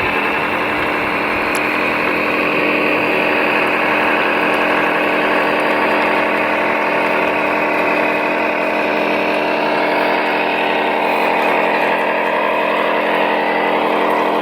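A radio-controlled model vehicle's motor running steadily at one constant pitch, an even mechanical whine.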